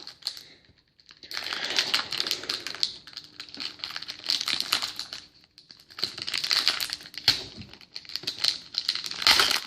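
Crinkling and rustling of trading cards and their pack wrapper being handled in gloved hands, in several spells with short pauses between them.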